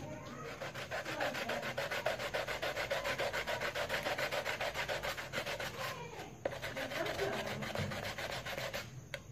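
End of a white PVC pipe being sanded by rubbing it quickly back and forth on sandpaper: a fast, even rasping of about five strokes a second, with a short break about six seconds in.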